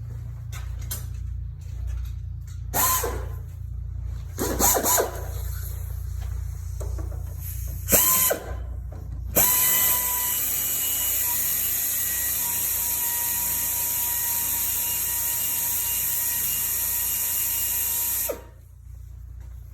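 A power tool unscrewing the bolt at the steering shaft joint: a few short bursts, then running steadily with a whine for about nine seconds before stopping abruptly.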